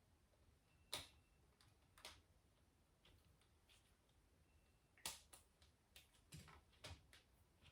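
Faint, scattered clicks of Lego Technic plastic pieces being handled and snapped together, a few single ticks and then several in quick succession.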